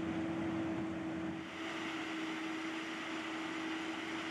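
Tractor diesel engine running steadily, with a constant hum over an even engine noise.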